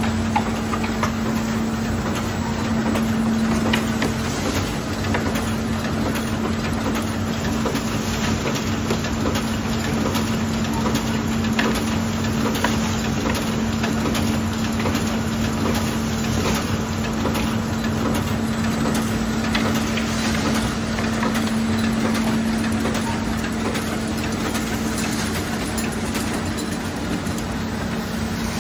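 Kugler-Womako Pro Punch automatic paper-punching machine running: a steady motor hum with a constant low drone and light, irregular clicking from the punching and feed mechanism.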